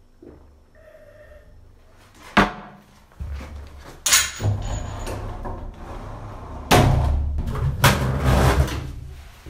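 Loud bangs and knocks: one sharp bang about two and a half seconds in, then rough, noisy banging and clattering from about three seconds that is loudest from about seven seconds and dies away near the end.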